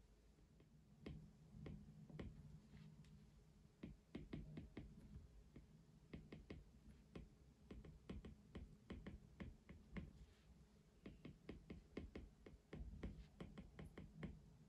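Faint, irregular runs of light taps and clicks, several a second, starting about a second in and thickest through the middle and near the end, over a faint low steady hum.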